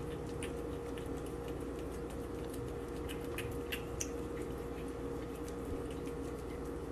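Small irregular clicks and smacks of a cat licking and nibbling at a treat held out in fingers, over a steady low hum.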